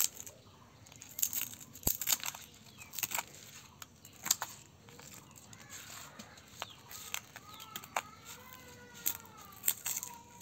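Shattered tempered-glass screen protector being pried and peeled off a phone screen, the broken glass crackling and snapping in sharp, irregular clicks.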